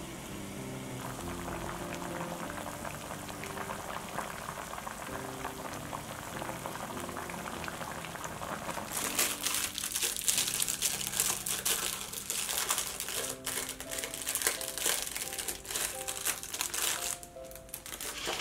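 Plastic cling wrap crinkling loudly as it is peeled off a round of brie cheese, from about halfway through for several seconds. Before that, a pot of mulled wine simmers with a light bubbling. Soft background music plays throughout.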